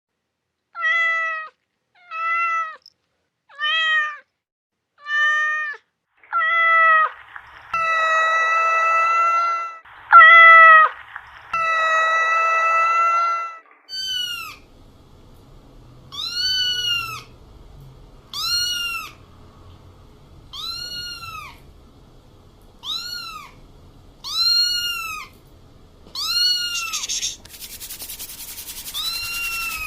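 Domestic cat meowing in a series: first several short meows about a second apart, then long drawn-out meows. From about halfway, higher-pitched meows that rise and fall come roughly every two seconds, with a stretch of hiss near the end.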